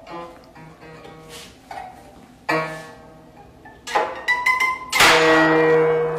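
Guzheng strings plucked unevenly by a cat's paws. Scattered single notes ring out, a cluster of quick plucks comes about four seconds in, and just after five seconds a loud sweep across many strings rings on.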